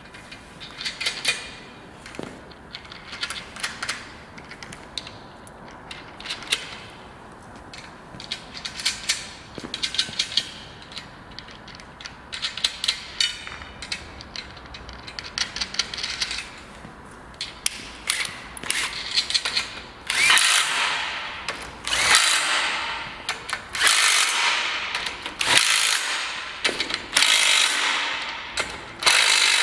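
Light metal clicks and clatter as the sweeper's steel frame and fittings are handled. About two-thirds of the way in, a cordless drill-driver starts running in short bursts of about a second each, six or so in a row, driving the fasteners that hold the brush.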